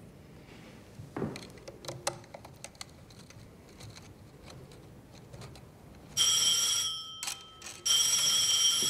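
Telephone ringing twice with a high electronic trill, the first ring starting about six seconds in and the second just before the end. Before that, a few faint scattered clicks.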